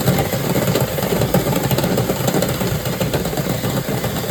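Dryer vent cleaning equipment motor running steadily, a continuous loud drone.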